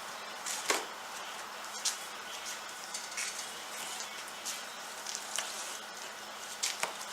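Plastic scraper spreading a thinned silicone coating over cloth pants: irregular short scrapes and clicks, about one a second, the loudest a little under a second in, over a steady hiss and a faint hum.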